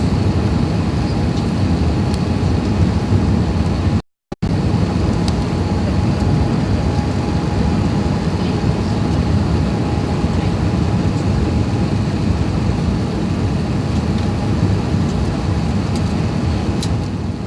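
Steady rumble of engine and airflow noise inside an Airbus A380's passenger cabin on the approach to landing, with a faint steady whine above it. The sound briefly drops out about four seconds in.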